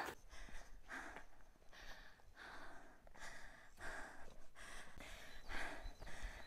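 A hiker breathing hard from exertion while climbing a steep trail: quick, even breaths, about one to two a second.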